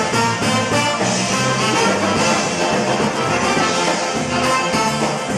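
Live polka band playing a brass-led tune: trumpet, trombone and saxophone in front, with squeezebox and bass guitar underneath, steady and loud.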